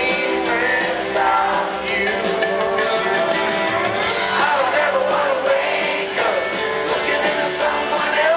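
Live country band playing, with a man singing lead over electric guitar.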